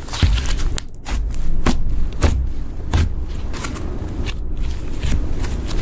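Thick pink makeup slime being stretched and squeezed by hand, giving irregular sticky crackles and small air-bubble pops over a low rumble of handling.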